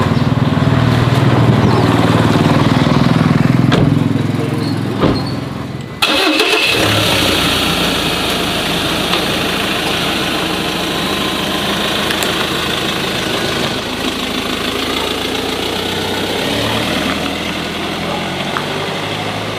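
A motor engine running, loudest for the first few seconds and then dying down. After an abrupt cut, a steady, noisier engine rumble goes on.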